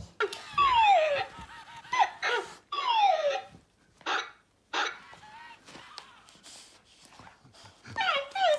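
Dog-like whining yelps, each sliding down in pitch. There are two clear ones about two seconds apart and another near the end, with short clicks and rustles between them.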